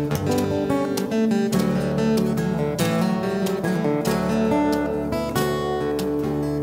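Instrumental music: a strummed acoustic guitar playing chords at a steady rhythm.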